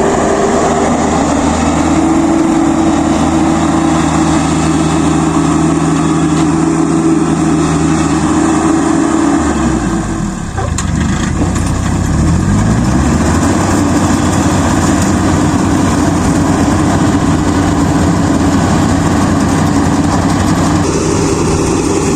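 Kubota DC-35 rice combine harvester's diesel engine running steadily at working speed. About ten seconds in, the revs drop briefly and then climb back up before it runs steady again.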